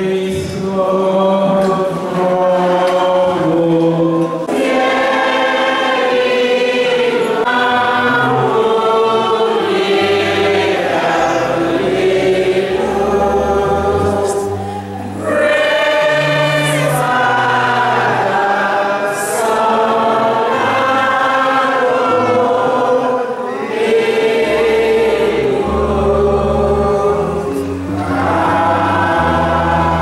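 Church choir singing together, over low held bass notes from an accompanying instrument.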